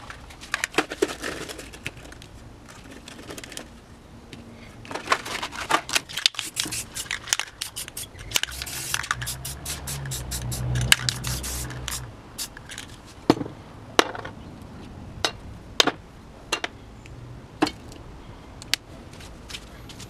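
Small metal nuts clicking and tapping as they are set on a paper stencil and dropped onto the worktable, with paper handling and a short hiss of black spray paint around the middle.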